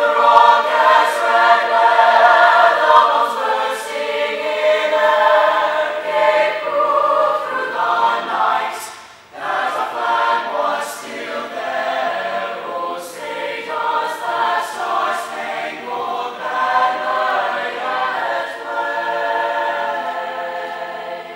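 A choir singing, with a short break between phrases about nine seconds in.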